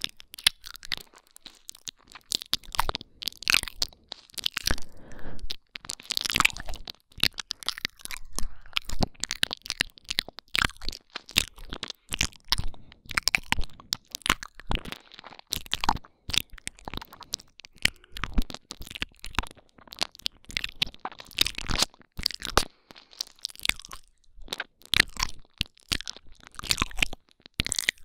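Intense ASMR 'ear eating' mouth sounds close to a binaural microphone: a fast, irregular run of tongue clicks and mouth smacks with brief pauses between clusters.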